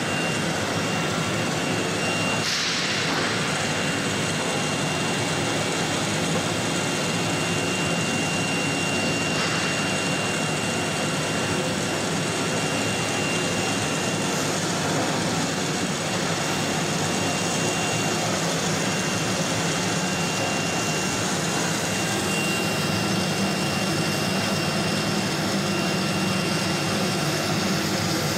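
Steady drone of the CNC router's vacuum pump running to hold the wooden door panel down on the table, with a thin high whine throughout.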